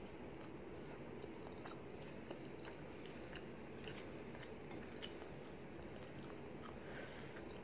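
A person chewing a mouthful of rice and fish curry, with small irregular mouth clicks over a steady faint hiss.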